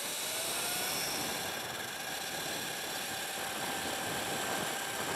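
Sur Ron electric dirt bike riding under power: its motor and drivetrain whine rises in pitch as it speeds up, then holds steady, with wind rushing over the microphone. The rider is fairly certain the drivetrain is making a fault noise, perhaps a damaged bearing.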